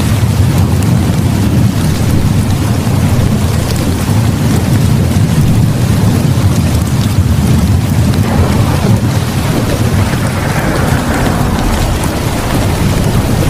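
Steady heavy rain with a continuous low rumble of thunder, as in a rainstorm recording.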